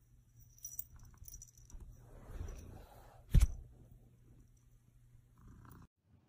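A cat moving on a fleece-covered bed: light rustling and a few faint high clinks, then one sharp thump about three and a half seconds in as it lands on the bed. A steady low hum from an electric fan runs underneath and cuts off near the end.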